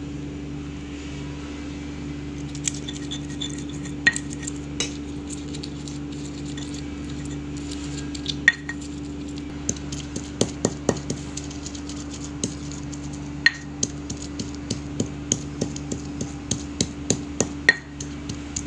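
Stone pestle crushing and grinding boiled red chilies in a stone mortar: scattered knocks and scrapes of stone on stone, coming several a second in the second half, some with a brief clink. A steady low hum runs underneath.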